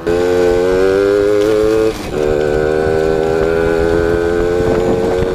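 Yamaha two-stroke moped engine running at steady revs while riding, with an even, slightly rising pitch. The sound dips briefly about two seconds in, then picks up again at much the same pitch.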